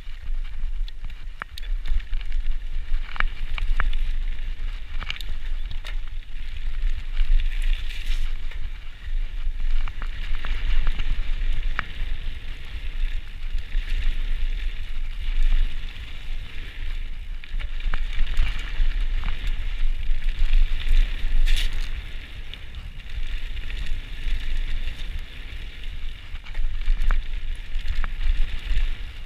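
Cube Stereo full-suspension mountain bike descending a dirt and gravel trail at speed: tyres rolling and crunching over the ground with a steady rushing hiss, wind buffeting the microphone, and frequent short clacks and rattles from the bike over bumps.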